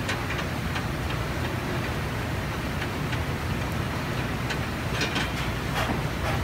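Steady roar of a commercial gas range's burners on high flame, with a few light clicks and scrapes as metal tongs wipe a cloth over hot cast iron skillets.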